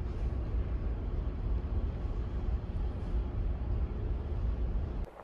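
Steady low rumble of a ferry's engines and hull heard from inside the ship, with a faint even hum over it; it drops away suddenly near the end.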